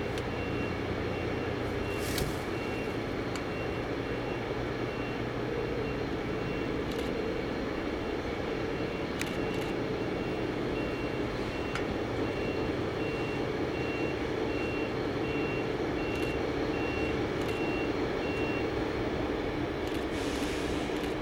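A vehicle's reversing alarm beeping about twice a second, stopping near the end, over a steady engine drone.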